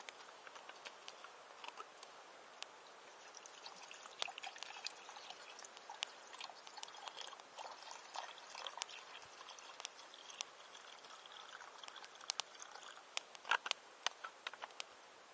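Wood campfire crackling with scattered sharp pops; from about four seconds in to about eleven, a soft trickle of liquid runs under the crackle.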